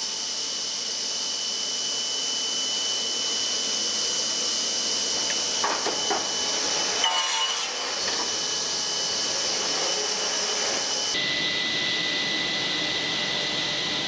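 Woodworking workshop machinery running steadily: a loud hiss with a thin high whine. A few knocks and clatters come around six to eight seconds in, and about eleven seconds in the whine drops abruptly to a lower pitch.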